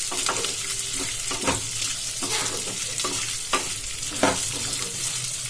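Chana dal, urad dal, green chillies and onions frying in a pan on a low flame: a steady sizzle, with a spatula stirring and scraping the pan about once a second.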